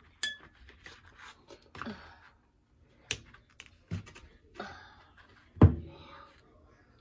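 A metal spoon clicking and scraping in a plastic bowl as chopped pico de gallo is scooped out, in a string of short knocks. The first click rings briefly, and the loudest sound is a dull thump near the end.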